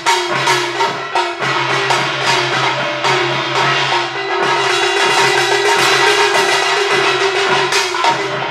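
A percussion trio striking handheld metal gongs and cymbals in a fast, dense run of strokes, with the instruments' ringing hum sustained underneath.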